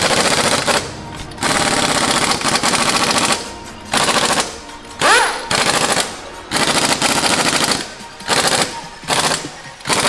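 Pneumatic impact wrench on a car wheel's lug nuts, rattling in a series of short bursts of rapid hammering with brief pauses between them.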